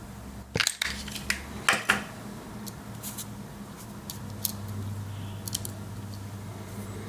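A run of sharp clicks and metallic clinks from handling a Swiss Army knife and its key ring, loudest in the first two seconds, then fainter scattered ticks.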